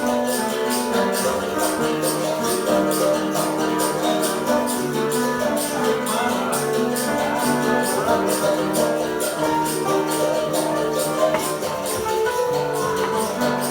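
Piano playing sustained chords while caxixi basket shakers keep a steady, even rattling rhythm, with a berimbau in the ensemble.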